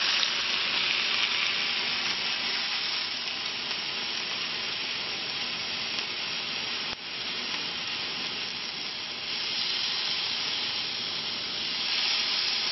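Thin marinated chicken breasts sizzling steadily on a hot cast-iron grill pan, with a few faint clicks of tongs as the pieces are moved. The sizzle swells a little near the end.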